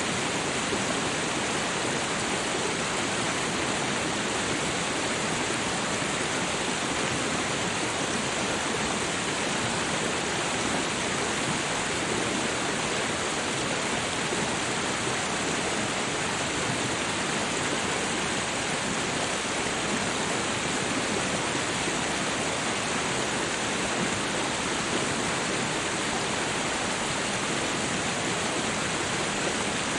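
Steady rushing water, an even unbroken hiss.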